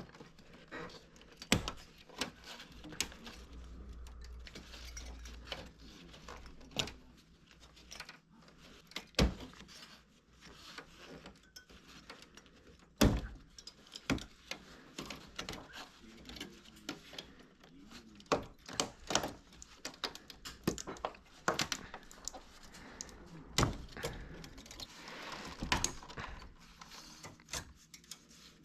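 Irregular sharp clicks, taps and knocks of hard plastic parts of a Toshiba wall-mounted air conditioner indoor unit being handled.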